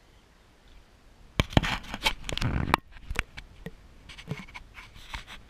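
Handling noise from fingers on the camera: a sudden cluster of loud clicks, scrapes and rubbing about a second and a half in, then lighter scattered taps.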